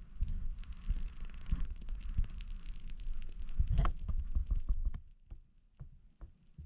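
Small wood fire crackling and popping over low rumbling thumps; about five seconds in it drops much quieter, leaving a few scattered pops.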